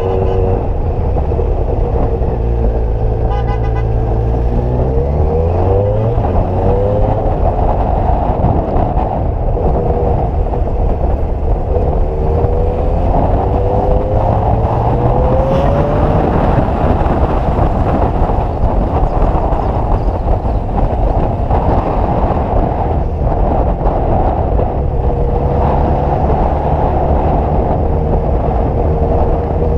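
Motorcycle engine under way with heavy wind rush, its pitch rising as the bike accelerates about four seconds in and again around twelve seconds in.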